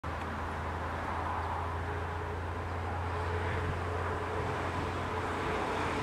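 Steady low background rumble with a faint, even hum over it.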